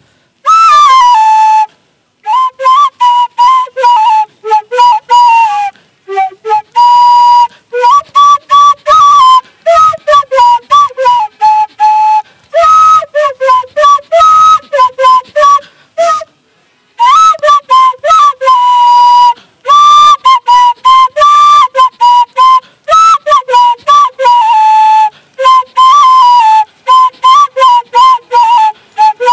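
Bamboo flute (bansuri) blown through the nose, playing a melody of many quick, separately sounded notes in phrases, with short pauses between phrases.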